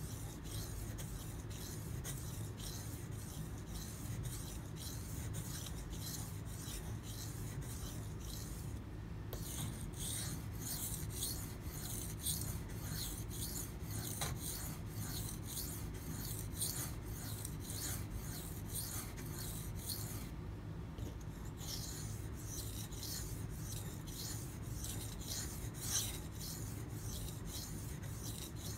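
Knife blade scraping back and forth across a water stone in steady repeated sharpening strokes, with two short pauses and one louder stroke near the end. The edge is being worked to raise a burr along its whole length.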